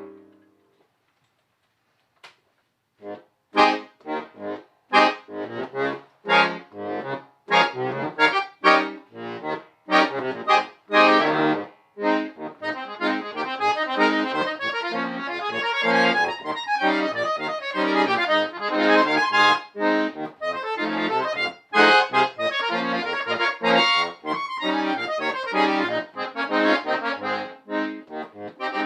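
Solo accordion music. A held chord dies away at the start, and after a short pause the playing resumes about three seconds in with short separate chords. From about twelve seconds in it becomes continuous, fast playing.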